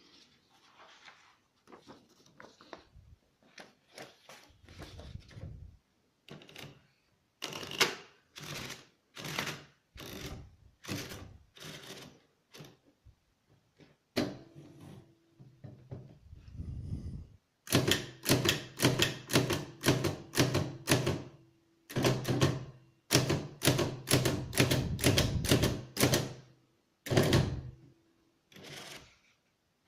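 Hammond 12 typewriter being typed on: a clatter of keystrokes, scattered at first, then quicker runs of several strokes a second.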